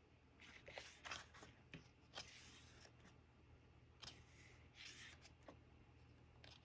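Faint paper rustling as the pages of a photobook are handled and turned, in several short, soft brushes.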